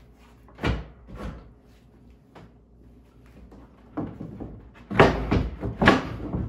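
Plywood boards knocked, shifted and slid on a wooden workbench: a couple of sharp knocks about a second in, then a run of louder thumps and knocks from about four to six seconds in.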